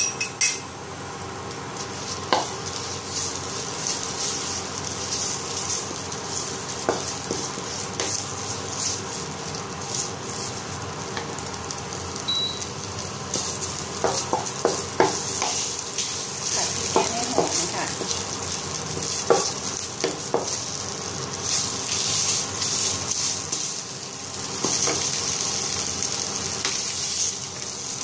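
Khua kling curry paste sizzling in hot oil in a wok while it is stirred, with scattered scrapes and clinks of the utensil against the pan.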